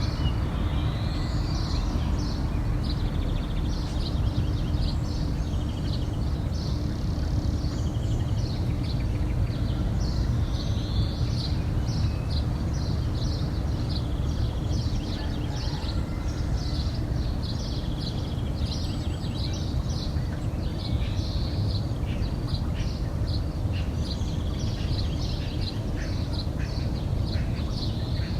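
Dawn chorus of many small birds chirping and trilling all the way through, over a steady low hum.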